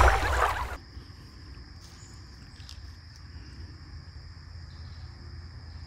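Outdoor woodland ambience: a steady high-pitched insect drone over a low rumble of wind on the microphone, with a few faint clicks. Outro music cuts off in the first second.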